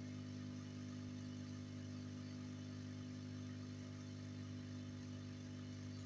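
A steady low hum with several evenly spaced overtones, unchanging throughout.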